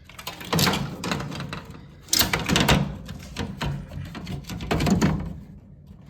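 Loud rubbing and scraping handling noise in three clusters, the longest starting about two seconds in, with fast rattling clicks through it. The air conditioner is not running.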